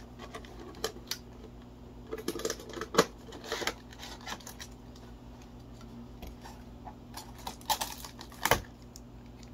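A figure's cardboard box and plastic packaging being handled and opened by hand: scattered clicks, taps and rustles, with a sharper knock about three seconds in and another near the end.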